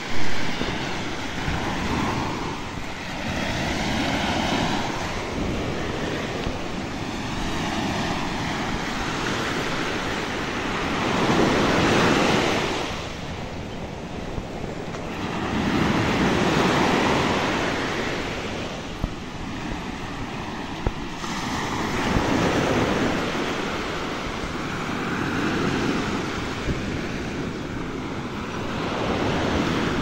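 Small surf breaking and washing up a sandy beach, the noise swelling and fading every few seconds, with wind buffeting the microphone.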